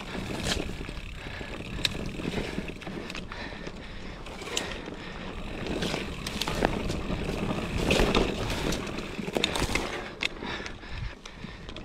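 Mountain bike rolling fast down rough dirt singletrack: a continuous rumble of tyres on dirt and rock, with scattered sharp knocks and rattles as the bike hits bumps.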